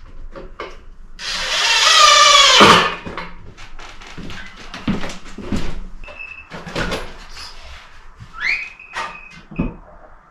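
Power drill running for about a second and a half, its pitch dropping as it stops, followed by scattered knocks and clatter of handling work materials. Near the end the drill runs again briefly, rising to a steady high whine.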